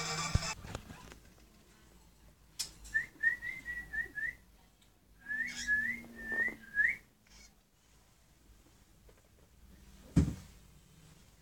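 Two quick runs of short, rising whistle-like chirps, about six in each, then a single sharp knock about ten seconds in.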